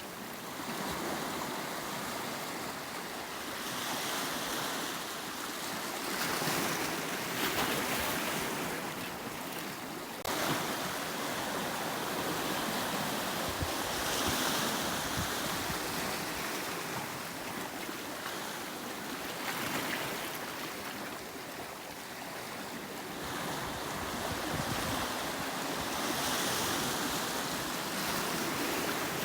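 Sea waves washing in on a rocky volcanic shoreline, the surf swelling and receding every few seconds, with one sharper surge about ten seconds in.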